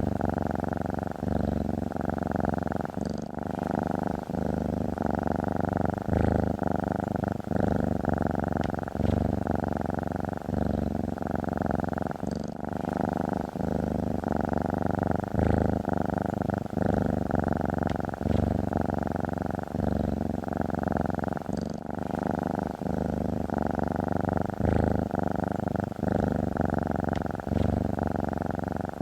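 Domestic cat purring steadily, close up, in a continuous rhythm that rises and falls with each breath about once a second.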